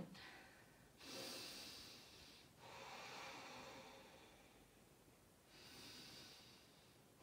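Faint, slow breathing of a person holding a deep yoga stretch: soft breaths, each lasting a second or two, about three in a row.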